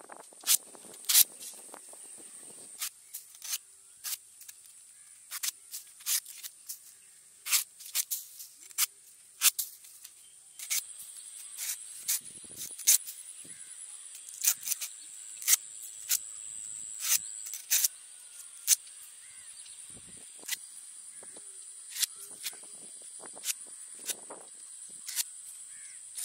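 Knife blade cutting and chopping into the tough husk of a palmyra palm fruit: sharp, short cuts at irregular intervals, about one a second. A steady high-pitched drone runs underneath.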